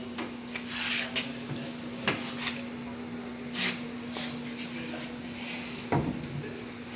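Manual sheet-metal folder being worked to bend stainless steel plate: metal knocks and short scrapes as the plate is set and the bending leaf is swung up, with the loudest knock about six seconds in. A steady low hum runs underneath.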